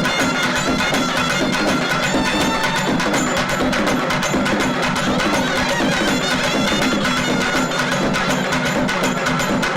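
Traditional South Indian festival music: a reedy wind instrument playing a wavering melody over fast, dense drumming.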